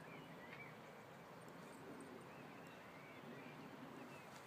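Near silence: faint outdoor ambience with a few short, faint bird chirps scattered through it.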